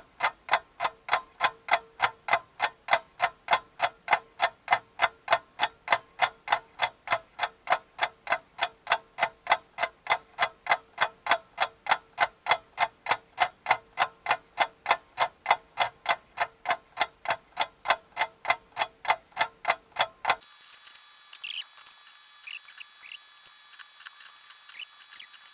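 Steady, evenly spaced ticking like a clock, nearly three ticks a second, which stops abruptly about twenty seconds in; a few faint light clicks follow.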